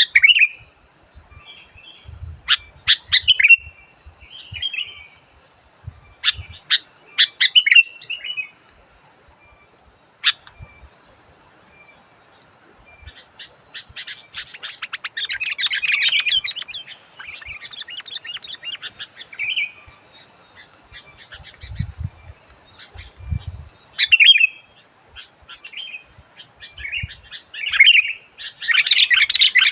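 Sooty-headed bulbul (kutilang) calling in groups of short, loud chirps. It breaks into a long run of rapid chattering about halfway through and again near the end.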